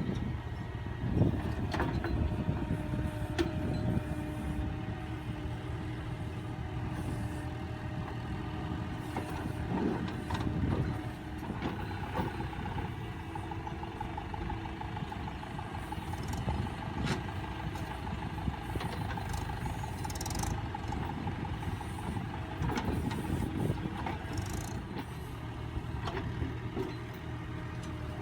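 Diesel tractor engine of a tractor-mounted backhoe loader running under load while it digs and loads mud, with a whine that rises and falls in pitch and occasional knocks, the sharpest about a second in.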